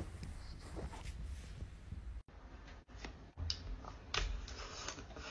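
Faint sounds of a dog lying on a blanket. About two seconds in, these give way to close-up eating sounds: a chocolate dog-shaped cake being bitten and chewed, a string of short clicks and wet mouth smacks.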